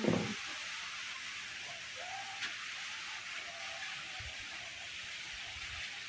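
Steady high hiss of outdoor ambience with two faint short bird calls, about two and three and a half seconds in.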